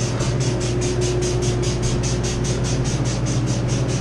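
Walk-in cooler's evaporator fans running with a steady low hum and a fast, even pulsing, about eight beats a second, while the condensing unit is off.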